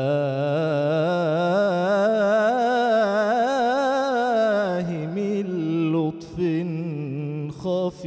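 A man singing an Islamic devotional ibtihal (inshad), drawing one long melismatic phrase with fast wavering ornaments that climbs and falls back. About five seconds in it gives way to shorter ornamented phrases with brief breaths between them.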